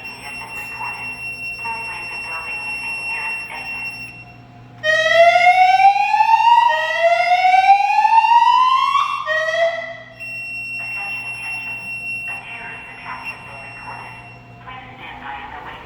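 Silent Knight 6820EVS emergency voice alarm speakers sounding a whoop tone: two slow rising sweeps about two seconds each and the start of a third, about five seconds in. Before and after the whoops, a pre-recorded voice announcement plays over the speakers with a steady high tone beneath it.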